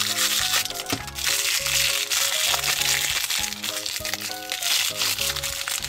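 Crinkly plastic wrapping of a toy blind bag rustling and crackling as it is handled and opened by hand, over background music with a steady bass line.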